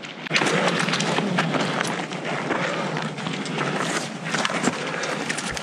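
Footsteps of runners on a rocky mountain trail, with irregular clicks and rustling throughout.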